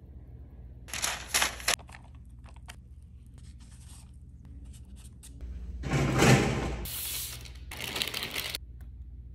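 A few short bursts of rustling and scraping from baking work with batter, a loaf tin and parchment paper, the loudest about six seconds in.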